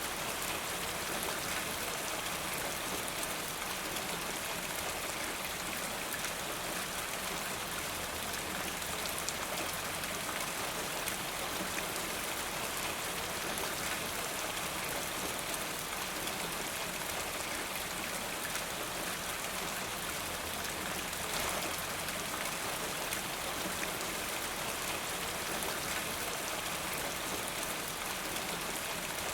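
Steady rain falling in a forest, a continuous even hiss with many fine drop patters on the surfaces.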